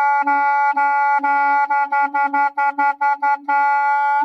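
Clarinet playing the note E over and over in one breath, each note tongued against the reed so the tone is only briefly interrupted. The repeated notes quicken to about five a second, then stop at the end.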